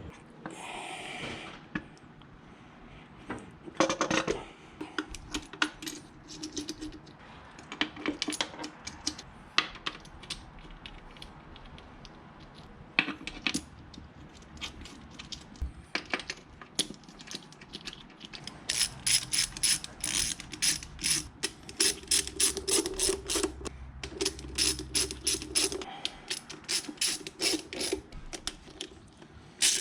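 Hand tools clicking and knocking against engine parts, then a ratchet wrench clicking in quick, rapid runs as bolts are run down during engine reassembly.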